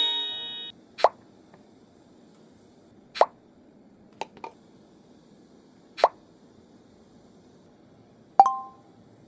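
Kitchen items being set down and handled: a handful of separate short knocks and plops spaced a second or two apart, the last and loudest a clink that rings briefly.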